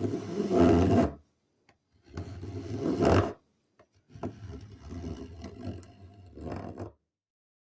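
Restored Stanley No. 51 spokeshave shaving wood in three strokes, the third longer than the first two; then the sound cuts off.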